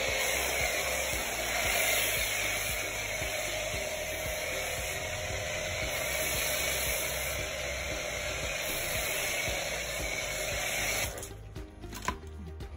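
STARQ 2,100-watt electric high-pressure washer spraying water: a steady hiss of the jet over the pump. It cuts off sharply about eleven seconds in, followed by a single click.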